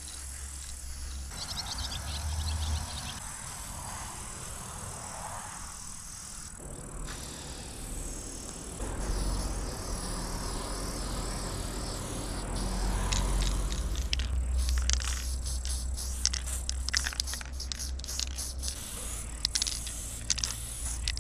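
Aerosol spray paint can hissing as it is sprayed, in a long pass at first and then in many short spurts through the second half, over a low steady rumble.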